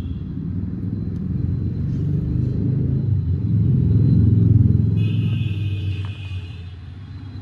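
A Tata Punch's 1.2-litre three-cylinder petrol engine running, a steady low rumble that grows louder toward the middle and then eases off.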